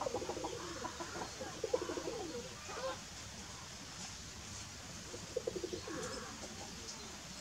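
Low, pulsing bird calls in a few short bouts: one at the start, another about two seconds in, and a third around five and a half seconds in, over a steady outdoor background.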